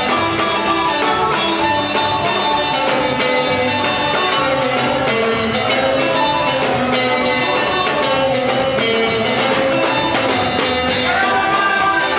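Dance music with a quick, steady beat and a melody line, playing without a break.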